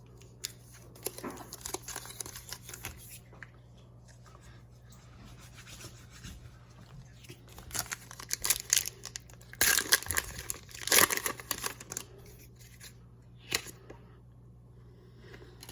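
Foil Pokémon TCG booster pack wrapper crinkling and being torn open, in irregular rustles with the loudest tearing about eight to eleven seconds in.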